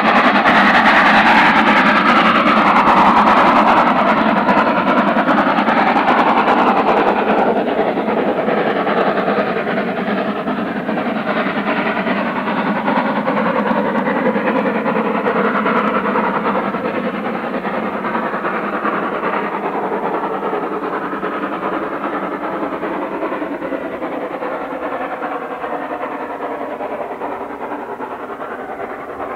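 Steam locomotive hauling a train away, its exhaust and the running of the train slowly fading as it draws off into the distance.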